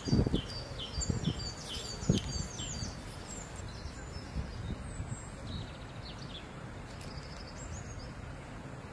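Soft low scrapes and thumps of loose soil being shoved by a burrowing rodent, strongest in the first two seconds, over a steady outdoor rumble. Small birds chirp in quick series in the background.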